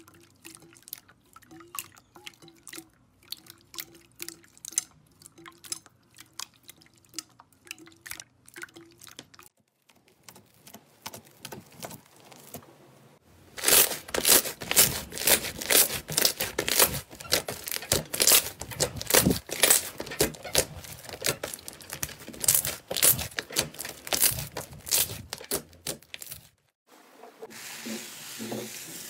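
Hands squishing and pressing slime. Wet, scattered clicks and drips come first. About halfway through, a long stretch of loud, dense crackling pops starts as a thick slime is pressed flat. Near the end there is a softer, even rustle.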